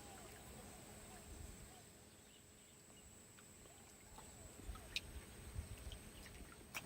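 Near silence: faint outdoor ambience with a thin steady high tone and a single faint click about five seconds in.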